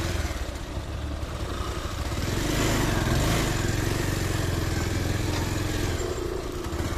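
Motorcycle engine running steadily close by, with a scooter's engine working harder up a rough, rocky track; the engine sound swells and rises in pitch about two to three seconds in.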